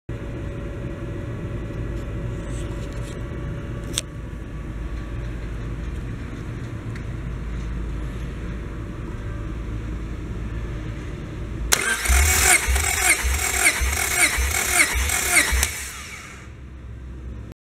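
Honda B18C Type R 1.8-litre DOHC VTEC four-cylinder engine running with a steady low hum. About twelve seconds in it turns loud and choppy, with several rhythmic pulses a second, for about four seconds before settling back down.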